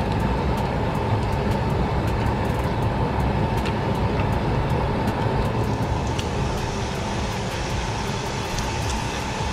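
Steady machine hum and rushing, bubbling water from a live-bait shrimp tank's pump and aeration, with a constant thin whine running through it and a few faint clicks.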